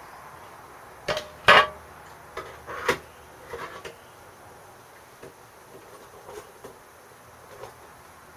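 A few sharp knocks and clinks of hard objects being handled, the loudest about a second and a half in, then fainter light taps.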